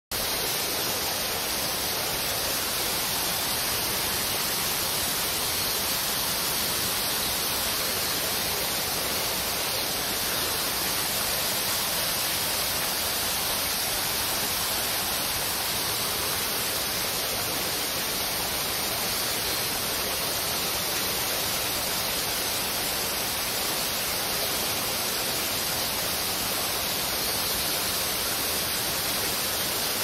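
Steady, even rush of flowing water, with no other sound standing out.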